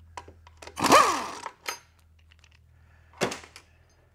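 Cordless electric ratchet spinning briefly about a second in, its motor whine dropping in pitch as it stops, as a bolt at the transmission's park linkage is run out. A little after three seconds a single sharp knock.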